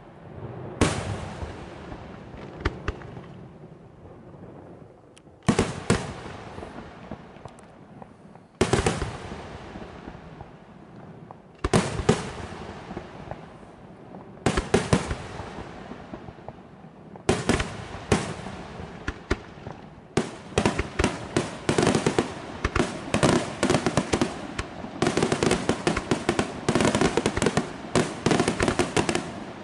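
Aerial firework shells bursting: single loud bangs about every three seconds, each trailing off, then about two-thirds in a rapid, near-continuous string of bangs that grows denser toward the end.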